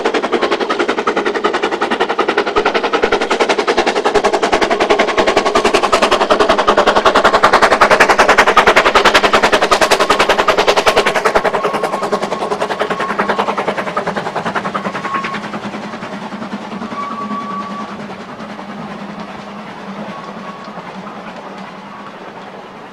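Narrow-gauge steam locomotive passing close, its exhaust chuffing in rapid beats. The chuffing is loudest about eight to ten seconds in, then fades as the coaches roll by.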